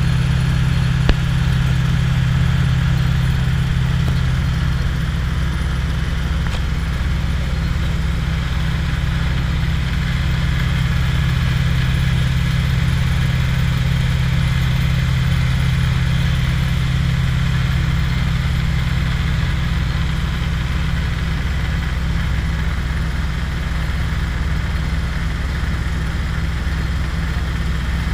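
An engine running steadily at idle, a constant low drone with a faint hiss above it and one brief click about a second in.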